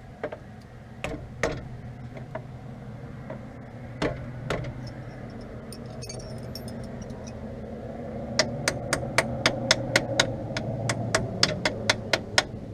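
A wrench working on battery terminal bolts: a few scattered metal knocks, then from about eight seconds in a quick, even run of sharp clicks, about four a second, over a steady low hum.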